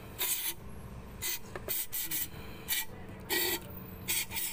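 Aerosol can of carb cleaner sprayed in about eight short hissing bursts into a plastic brake fluid reservoir, flushing dirt out of the inside.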